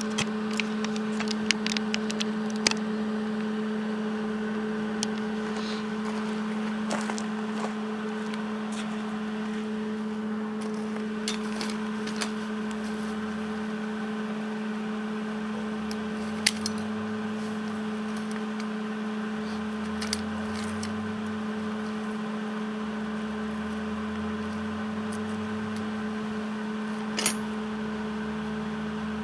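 Steady electrical hum of a MIG welder running, with scattered sharp clicks and taps of metal being handled.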